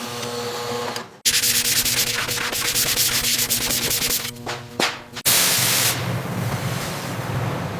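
Harsh scraping and rubbing noises, typical of cleaning rusty metal, in several short segments that start and stop abruptly.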